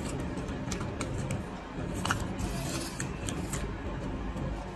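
Light rustling and a few soft clicks of hand-sewing: green fabric strips being handled while a needle and thread are drawn through them to fix a bead.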